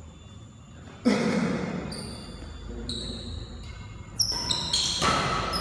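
Athletic shoes squeaking on a synthetic indoor badminton court during a rally: many short, high squeaks, some sliding slightly down in pitch. A sudden loud burst comes about a second in and another near the end.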